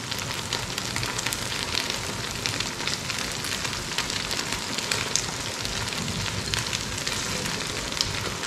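Chicken in a thick white sauce sizzling steadily in a frying pan over a gas flame, with a constant stream of fine crackles.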